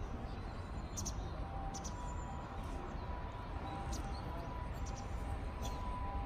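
Outdoor ambience by a garden pond: a steady low background noise with faint, short bird chirps now and then.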